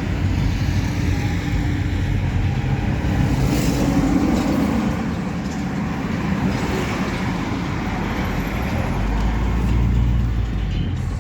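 Steady rumble of a road vehicle on the move, with road noise.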